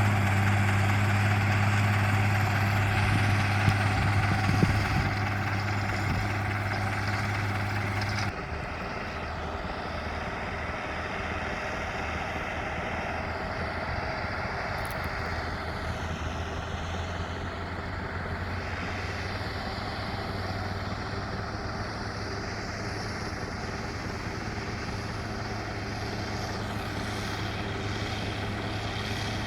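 Zetor 16245 tractor's six-cylinder diesel engine running steadily under load while pulling a disc harrow. It is louder for the first eight seconds or so, then drops suddenly to a lower, steady level.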